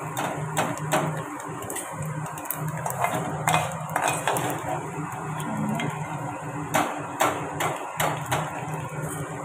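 A steel spoon scraping and knocking against a metal frying pan and a steel bowl as fried rice is scooped out of the oil and tipped into the bowl, giving a string of irregular metallic clinks and taps.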